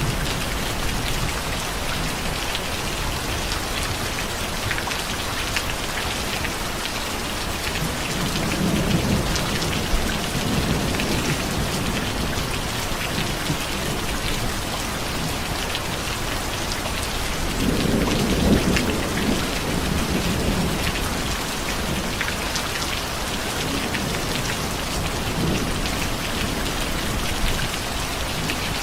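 Steady rain with many individual drops ticking. Low rolls of thunder swell up about eight seconds in and again around eighteen seconds, with a fainter one later.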